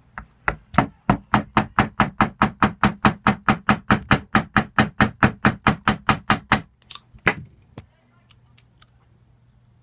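Quick, even knocking, about five hard strikes a second for some six seconds, then two single knocks about half a second apart, like something being struck repeatedly with a hammer.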